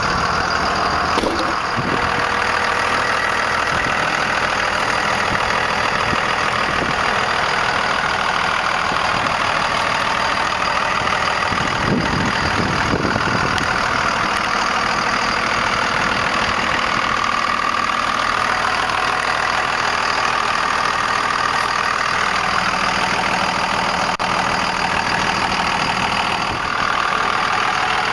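Cummins 5.9-litre inline-six turbo diesel of a 1998 Dodge Ram 2500 idling steadily.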